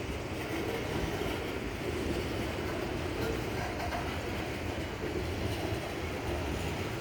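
Freight cars of a long mixed freight train rolling past: a steady rumble of steel wheels on the rails.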